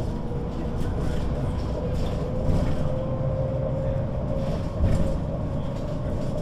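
MAN NG 313 articulated bus under way: low diesel engine rumble with a steady gearbox whine from its ZF automatic transmission that rises slightly in pitch a couple of seconds in, plus light rattles and a bump near the end.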